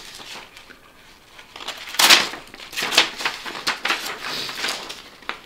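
A sheet of paper rustling and being sliced by a freshly sharpened broadhead blade in a few short, crisp strokes, the loudest about two seconds in. This is a paper-cut test of the edge's sharpness.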